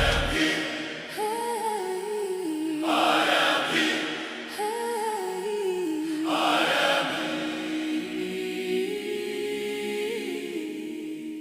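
Background choir music: wordless voices singing a slow, wavering melody over held notes, with soft airy swells about every three seconds.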